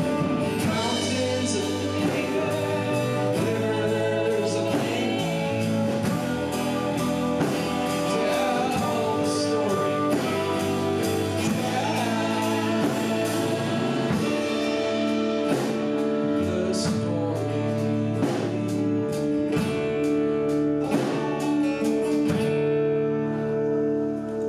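A live rock band playing a song with sung vocals: electric and acoustic guitars, saxophone, a brass horn and drums keeping a steady beat. Near the end the drums stop and a final chord rings on as the song closes.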